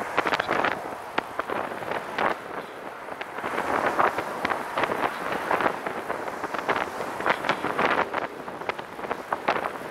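Wind buffeting the microphone in uneven gusts, over the steady noise of passing car traffic.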